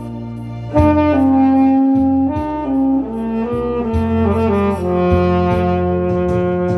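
Tenor saxophone playing a slow ballad melody in long held notes over a backing track with bass and light percussion.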